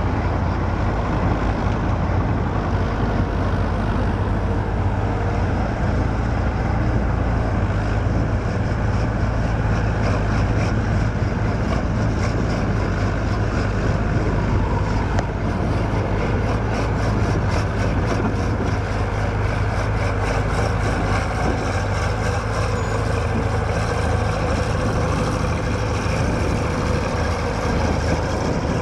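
Diesel engine of an older JCB tracked excavator running steadily as it digs and swings loads of dirt.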